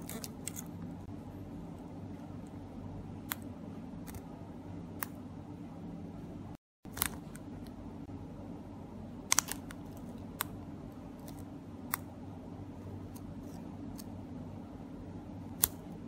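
Small plastic key fob remote buttons clicking as they are pressed, a dozen or so sharp clicks scattered a second or more apart over a steady low background hum.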